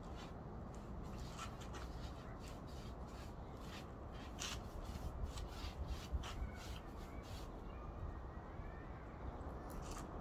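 Paintbrush strokes of wood glaze on an OSB panel: a run of short, scratchy rasps at an uneven pace.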